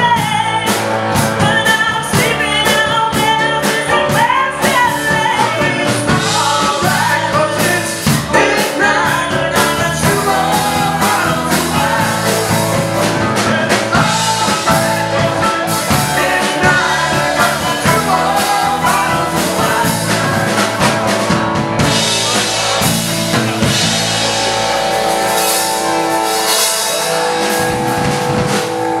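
Live band playing a song on electric guitar, electric bass and drum kit, with a lead vocal. The singing is most prominent over the first several seconds; in the last few seconds the instruments and crashing cymbals are loudest.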